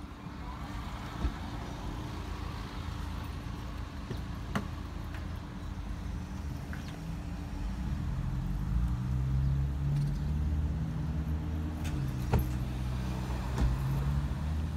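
Cars passing on a road. About eight seconds in, classic Aston Martin sports cars drive by and their engines' low hum grows louder. A few sharp knocks stand out over the traffic noise.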